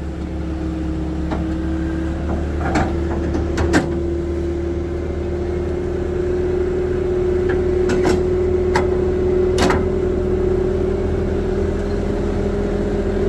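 Skid steer engine running steadily, its pitch creeping slowly up, with several short sharp knocks through it.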